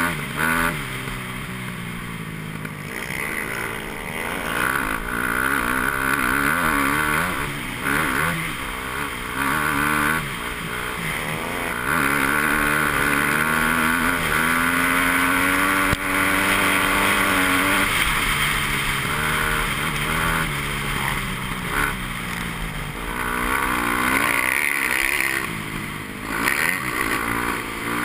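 KTM dirt bike's engine being ridden hard, the revs rising and falling with throttle and gear changes and held high for several seconds about halfway through, over a steady rush of wind.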